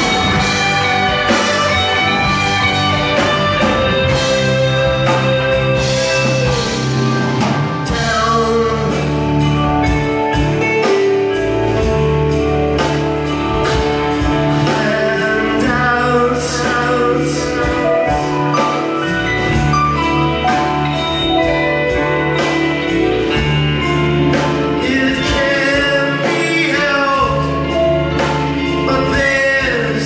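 Live rock band playing a song loud in a club room: electric guitars, bass and drums with a sung melody.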